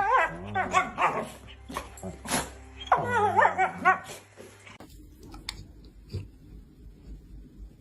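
A dog giving a run of wavering, whining yelps and barks for the first four to five seconds. Then the sound cuts to a quiet background with a few faint clicks.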